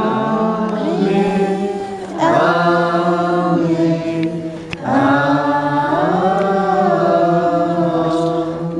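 Voices chanting a slow melody in long held notes. There are three phrases, each starting after a short break, and the sound fades near the end.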